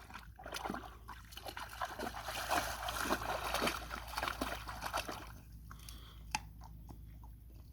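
Water splashing and sloshing as a dog paddles in a lake to grab a thrown object, with many small splashes and drips. It goes quieter about five seconds in, leaving only scattered small clicks.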